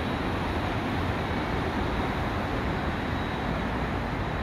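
Steady rumble of distant road and airport traffic, with no distinct event standing out.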